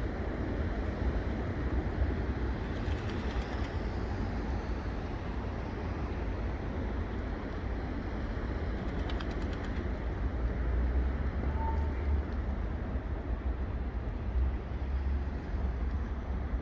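Steady low outdoor rumble with an even background hiss, with no distinct events standing out.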